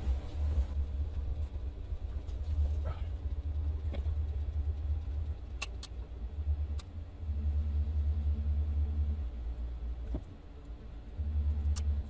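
A low rumble that comes and goes in stretches of a few seconds, some stretches with a steady hum over it. A few sharp clicks of wire snips cutting and trimming wire come near the middle and once near the end.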